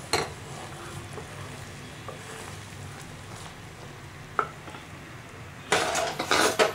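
Wooden spatula stirring and scraping a pan of jaggery syrup bubbling on the stove as it boils down toward hard-ball stage. The bubbling is faint and steady, with a single knock about four seconds in and a run of louder scrapes and knocks against the pan near the end.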